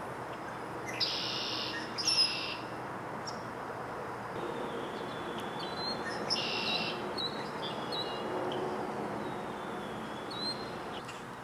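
Birds calling: a few short high-pitched calls, the loudest about one and two seconds in and again past halfway, over steady outdoor background noise.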